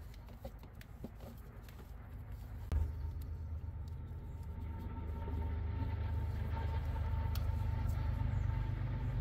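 A few light clicks of wiring being handled, then about three seconds in a vehicle engine's low rumble comes in suddenly and runs on steadily, growing a little louder.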